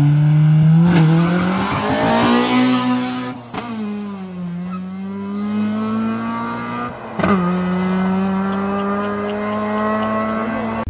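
Two cars launching hard in a drag race, a BMW 4.4-litre V8 and a Daewoo Nexia with a 2-litre Opel four-cylinder, at full throttle. The engine pitch climbs through each gear and drops back at upshifts about 3.5 and 7 seconds in.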